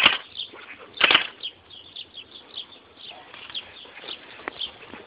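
Battery-powered airsoft AK-47 replica (electric gun) firing on full auto: two short bursts about a second apart, followed by a run of fainter, irregular ticks.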